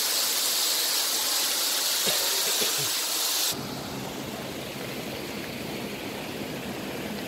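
Rushing water of a mountain stream and waterfall, a steady bright hiss. About halfway through it cuts off abruptly to a quieter, duller rushing noise with more low rumble.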